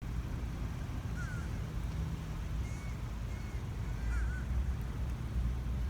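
A few short bird calls, faint and spaced out, over a steady low rumble.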